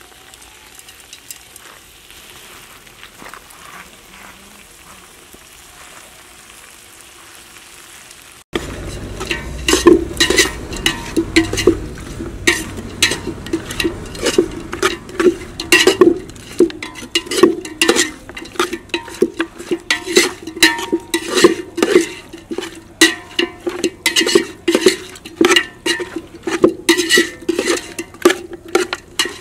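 Country chicken pieces frying in a metal pot over a wood fire, faintly sizzling at first. From about eight seconds in, a metal spoon stirs and scrapes against the pot in quick, repeated clanks over the frying.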